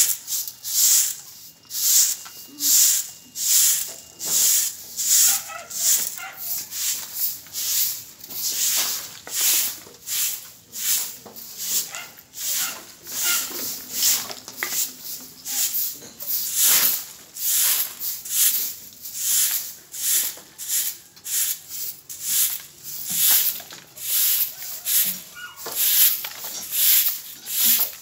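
Short hand broom sweeping a paved street: brisk scratchy strokes of the bristles on the pavement, about two a second.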